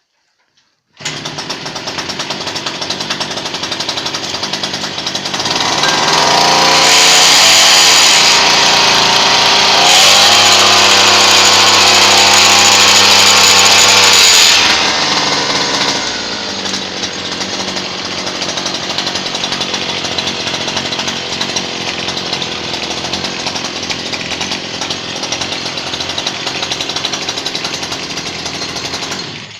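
Salyut outboard boat motor driven by a two-stroke grass-trimmer engine, running at idle, revved up to high speed from about five to fifteen seconds in with a brief dip in the middle, then dropping back to idle; the sound stops abruptly near the end.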